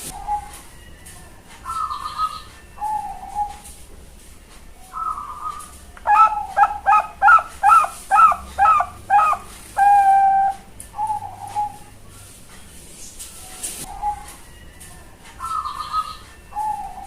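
Young Bangkok-strain perkutut (zebra dove) singing. Soft single coos come a second or two apart; about six seconds in, a fast run of about nine loud, clipped coos ends in one longer held note, and single coos follow.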